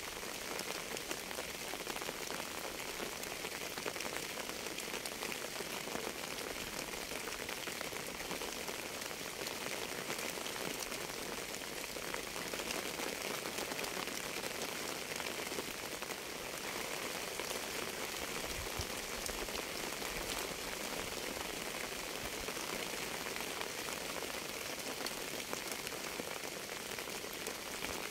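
Steady rain falling: an even, unbroken sound of many raindrops at a constant level.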